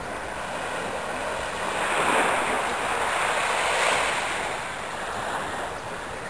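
Gentle surf washing onto a sandy beach, the wash swelling twice.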